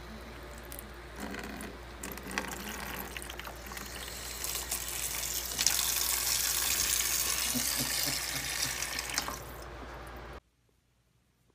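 Kitchen tap running into a plastic food container in a stainless steel sink. The stream is thin at first and turns into a louder, heavier gush about halfway through, then stops abruptly near the end.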